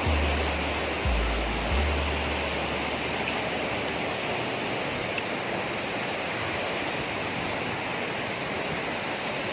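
Steady, even rush of waterfall water. Low bass notes of background music sound under it for the first few seconds, then stop.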